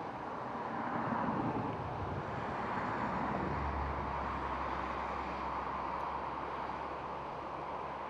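A road vehicle passing on the highway: tyre and engine noise swelling about a second in and slowly fading, with a low engine hum in the second half.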